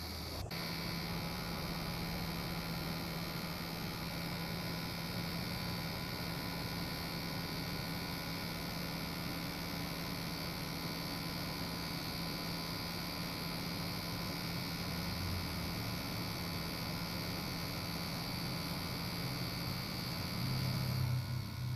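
Steady electric hum of the small motor driving a homemade RC ferry boat, heard from a camera on board, with a constant high whine above it. A brief click comes about half a second in, and the low hum shifts near the end.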